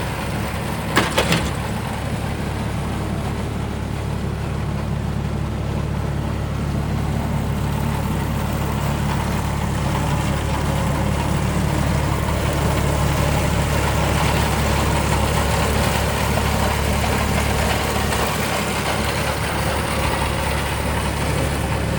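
Kubota F2890 front-mount mower's diesel engine running steadily, with a few sharp clicks about a second in.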